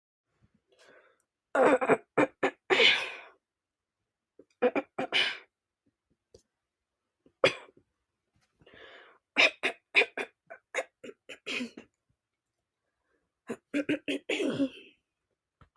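A girl clearing her throat and coughing, in about five bouts of short, harsh bursts with pauses of a second or two between them.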